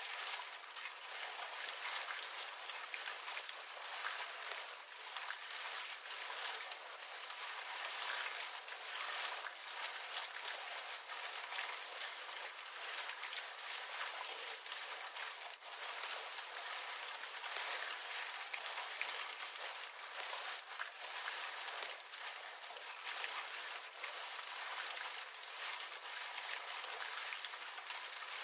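Dense, steady crackling and clicking built from a recording of thawing pond ice sheets cracking and breaking, reworked by computer into a continuous texture with no low end. Now and then a sharper click stands out.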